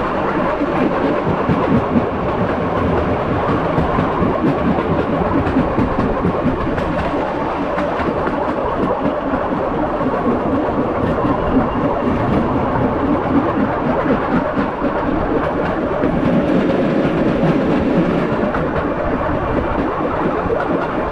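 A moving vehicle's steady rumble with a continuous fine rattle.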